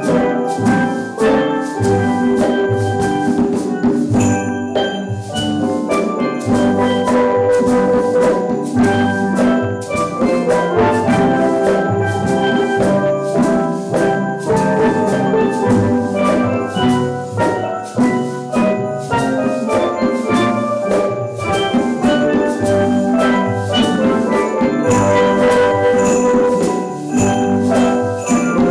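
Steel drum band playing a tune, the pans ringing out many quick notes over a steady drum beat.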